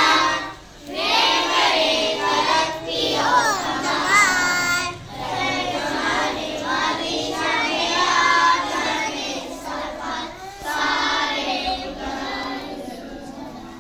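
A group of young schoolboys singing together, phrase after phrase with short breaks for breath, getting quieter near the end.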